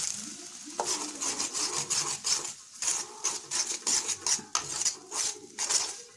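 A spoon scraping against a metal kadai as it stirs multigrain flour into melted ghee and vanaspati. The strokes are quick and repeated, two or three a second, starting about a second in.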